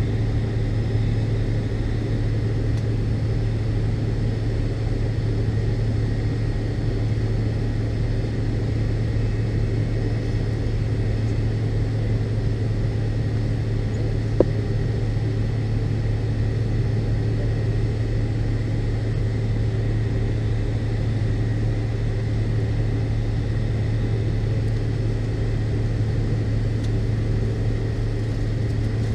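Steady drone of an MD-82 airliner heard inside the cabin: the rear-mounted Pratt & Whitney JT8D engines and airflow make an even low hum that holds level. A single short click comes about halfway through.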